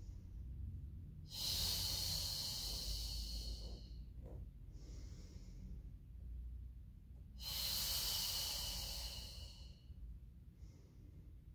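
A woman's audible Pilates breathing: two long, forceful exhales about six seconds apart, with fainter inhales between. The breath is timed to an alternating leg extension, exhaling as the leg draws back.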